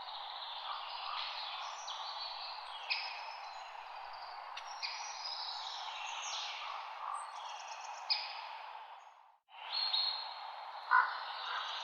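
Several songbirds chirping and singing in short calls and falling whistles over a steady hiss of light wind in leaves. The sound cuts out briefly about nine seconds in, then the birdsong resumes.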